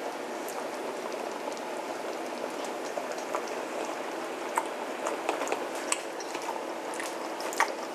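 Pot of chili simmering: a steady bubbling hiss with scattered small pops of bursting bubbles, one sharper pop near the end.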